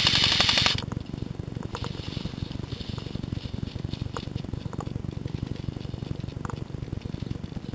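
Airsoft electric gun firing a full-auto burst that cuts off suddenly a little under a second in. After it, a steady low rumble of handling and movement noise with a few faint clicks.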